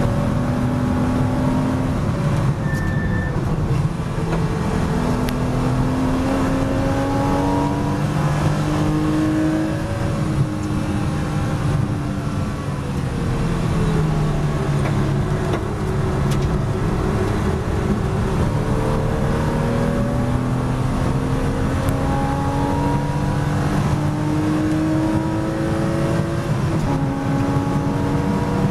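Porsche Boxster S race car's flat-six engine heard from inside the cockpit at full racing pace: the pitch climbs through the gears, drops at each upshift, sinks away near the middle as the car slows for a corner, then climbs steadily again under hard acceleration.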